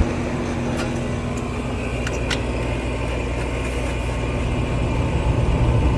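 Lennox two-ton condensing unit's compressor running with the fan motor disconnected: a steady low hum, with a few light clicks about a second and two seconds in. The system is short of Puron (R-410A) refrigerant, its pressure really low from a big leak.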